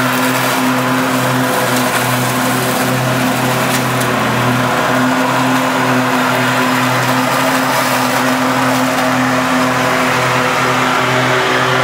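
Cub Cadet riding lawn tractor's engine running steadily close by, driving over leaves with a bagger behind it to pick them up.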